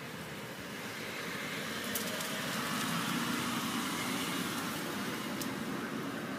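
A passing motor vehicle: a steady running noise that swells to its loudest about halfway through and slowly fades, with a couple of faint ticks.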